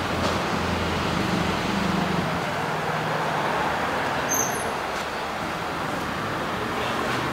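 Steady hum of road traffic, with a short high chirp about four and a half seconds in.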